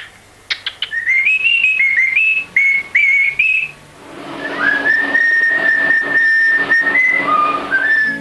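Pet cockatiels whistling mimicked tunes: a quick run of notes stepping up and down, then, after a short break, a long held note that drops lower and climbs back near the end.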